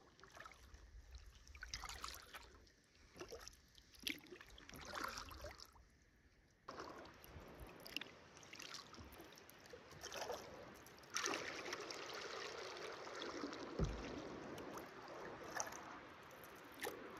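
Kayak paddle strokes dipping and splashing in water, irregular, about once a second. After about seven seconds a steadier rush of water takes over, growing louder near the middle, with a couple of sharp knocks near the end.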